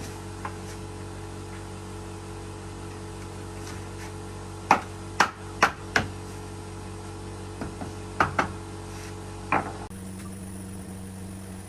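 Hammer blows on a wooden door frame being set into a doorway: four sharp strikes about half a second apart, then after a pause two quick ones and a last single blow.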